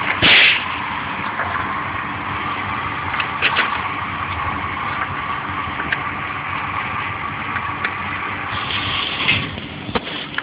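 Steady mechanical hum of a shooting range, with one loud, sharp gunshot report about a third of a second in and a few faint cracks of shots later on.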